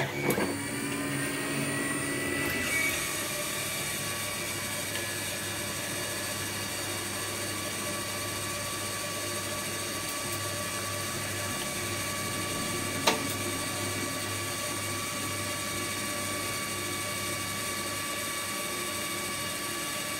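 Desktop 3D printer's stepper motors driving the axes to their home positions: a rising whine in the first few seconds as the bed and head move, then a steady hum of several tones, with a single click about thirteen seconds in.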